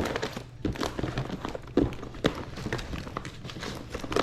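Rummaging through a box of files and receipts, with a quick run of taps, knocks and paper rustling as items are handled and shifted.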